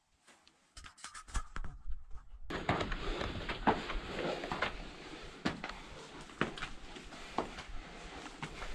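Shoes scuffing and scraping on rock-cut stone steps in a narrow tunnel, with clothing rustle and small knocks against the rock. There are a few scattered clicks at first, then from about two and a half seconds in a steady run of scuffs and knocks.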